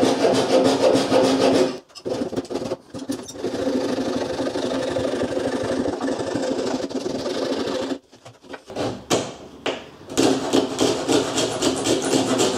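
Coping saw cutting through MDF picture rail moulding in quick short strokes, scribing the profile for an internal corner joint. The sawing stops briefly about 2 s in and again for a moment about 8 s in, then picks up again.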